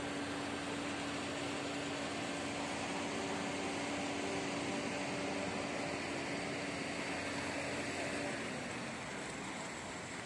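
Steady drone of construction-site machinery, a constant low hum over a noisy rush, which eases off about eight seconds in.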